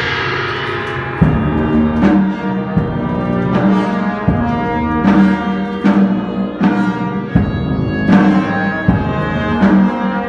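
Procession brass band playing a slow funeral march: held brass chords over steady bass drum strokes about every three-quarters of a second, with a cymbal crash dying away at the start.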